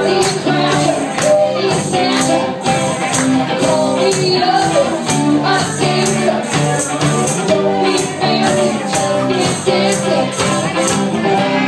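Live rock band playing with electric guitars, bass and drums keeping a steady beat, and a woman singing into a microphone over it.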